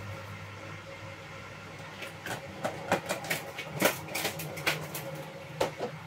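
Kitchen handling noise: a run of irregular sharp clicks and knocks of things being picked up and set down at a kitchen sink, louder in the middle, over a steady low hum.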